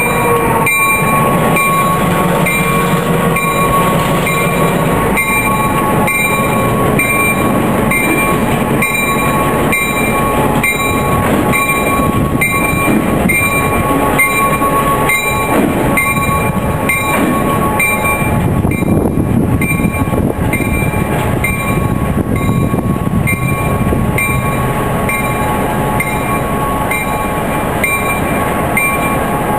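Norfolk Southern diesel-electric locomotives running as they move slowly off the turntable into the shop yard, a steady engine rumble with a held tone above it and a high ringing that repeats about once a second.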